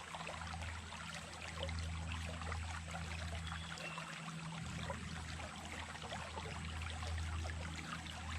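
Small stream running steadily, with many small splashes and trickles over a low rumble of flowing water.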